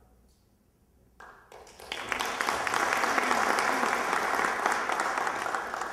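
Audience applauding: after a second of near quiet the clapping starts, swells quickly and holds steady, easing off near the end.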